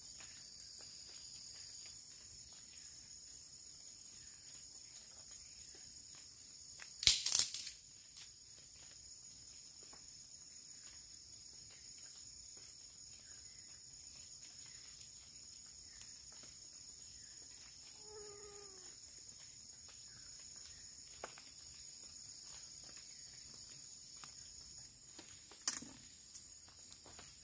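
Steady high-pitched drone of rainforest insects. A brief loud crackle comes about seven seconds in, a short falling call around eighteen seconds, and a sharp click near the end.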